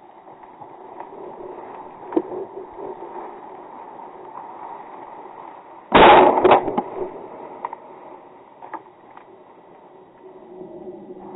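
Footsteps crunching through dry grass and brush, then about six seconds in a loud shotgun shot, with a second bang about half a second after it.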